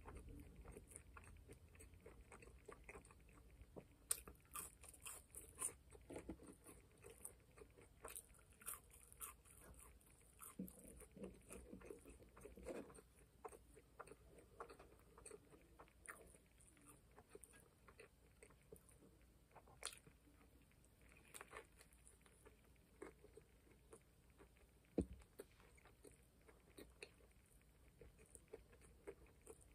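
A person chewing and biting into a McDonald's McGangBang burger and fries close to the microphone: faint, wet mouth clicks and smacks, with a few sharper clicks among them.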